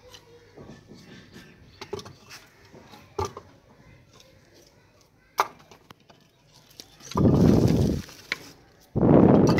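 Sticks of firewood knocking against each other and the clay stove, a few sharp knocks, then a woven plastic cement sack rustling loudly twice, about a second each, as hands rummage in it near the end.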